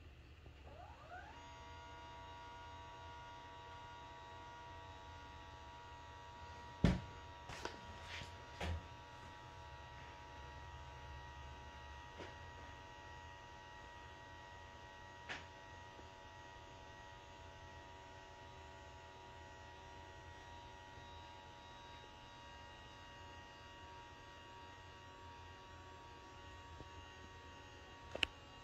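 Permobil F3 power wheelchair's electric actuator running steadily with a whine as the power elevating legrest rises and extends, spinning up about a second in. A few sharp clicks come about seven to nine seconds in, once more midway, and near the end.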